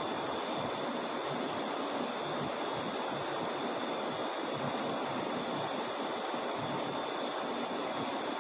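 River water rushing steadily, the river running high after a flood.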